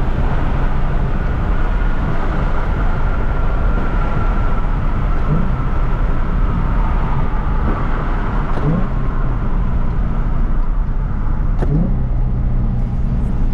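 Car being driven: a steady, loud mix of engine and road noise, with three brief rising chirps spread through it.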